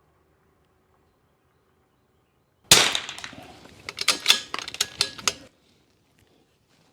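A single shot from a DPG RIM-X .22 LR benchrest rifle, one sharp crack with a short ringing tail, followed about a second later by a quick run of sharp metallic clicks as the bolt is worked.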